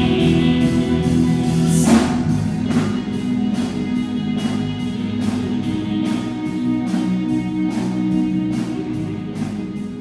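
Live worship band playing without vocals: sustained guitar chords over a steady cymbal beat of two to three strikes a second. A louder crash comes about two seconds in, and the music begins to fade near the end.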